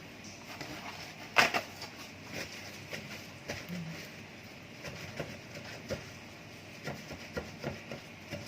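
Scattered light knocks and clicks of kitchen handling as marinated chicken is dried and laid in a pan, with one sharper knock about a second and a half in.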